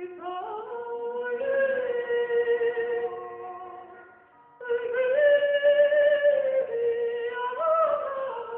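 Background music with singing: long held notes that change pitch slowly, breaking off about four seconds in before a new phrase begins.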